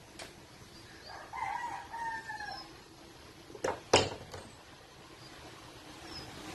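A rooster crowing once, a long call of about a second and a half that falls in pitch at the end. About a second later come two sharp knocks close together, louder than the crow.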